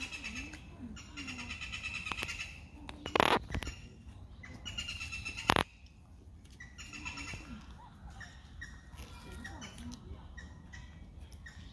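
Repeated short, high chirping calls, with two sharp knocks about three and five and a half seconds in.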